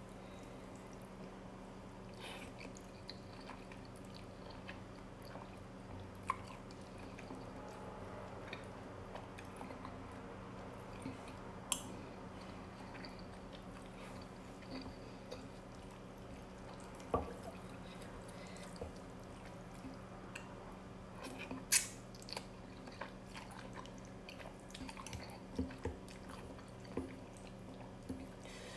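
Close-up eating of instant noodles: quiet chewing and mouth sounds, with scattered sharp clicks of a metal spoon and chopsticks against a ceramic bowl, the loudest click a little before three-quarters of the way through. A steady low hum runs underneath.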